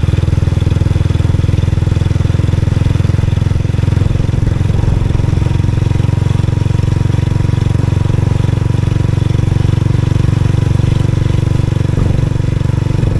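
Motorcycle engine running steadily and loud, close to the microphone, with no change in speed.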